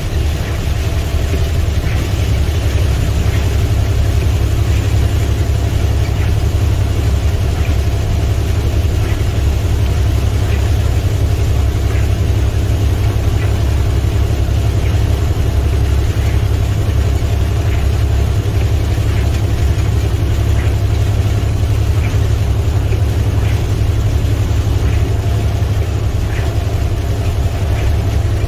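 International semi-truck's MaxxForce 13 inline-six diesel running steadily at highway cruise, heard from inside the cab as a deep, even drone. Over it lies the hiss of rain and road spray, with faint light ticks about once a second.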